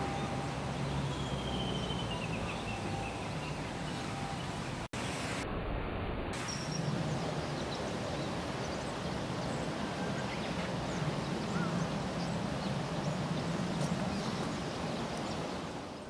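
Outdoor background ambience: a steady low rumble and hiss, with a faint thin whistle falling in pitch about a second in, and a momentary break in the sound about five seconds in.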